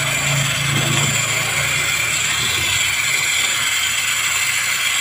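Pressurised gas hissing steadily as it is blown through a freezer's refrigerant lines to flush them clean, with a low hum under it for the first second or so.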